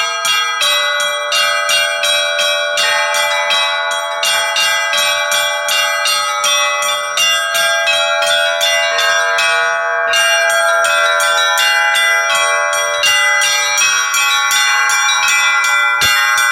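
Russian Orthodox church bells rung by hand by one bell ringer: quick strikes on the small bells, about three or four a second, over the ringing of the larger bells, getting a little louder and more even about halfway through.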